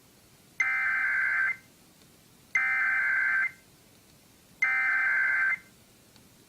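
Emergency Alert System SAME header data bursts: three identical bursts of two-pitch digital warbling, each about a second long and about a second apart. They carry the encoded header that opens an EAS test.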